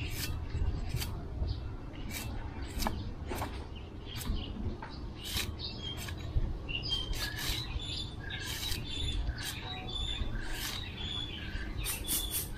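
A large knife chopping the husk of a young coconut: a quick, irregular series of sharp chops as the husk is pared away. Birds chirp throughout, more often in the second half.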